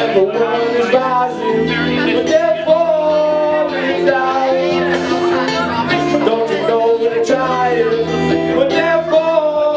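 Live acoustic rock band playing: strummed acoustic guitars and electric bass under a singer's long, held sung notes.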